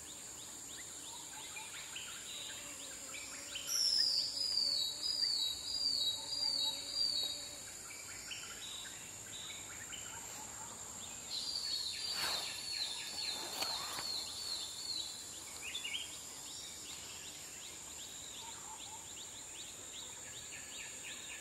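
Forest ambience: a steady high-pitched insect drone, with a songbird singing two bursts of rapid falling notes, about four seconds in and again around eleven seconds, and softer chirps in between.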